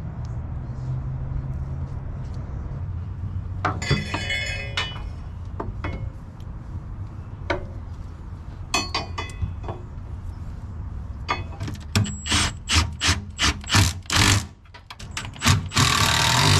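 Hand tools and metal parts clinking and clicking while a front sway bar is fitted under a Honda Civic EF sedan, over a low steady hum. There is a ringing metallic clatter about four seconds in, then scattered clicks, then a quick run of sharp clicks at about two or three a second. It ends with a short, loud, harsh burst of noise.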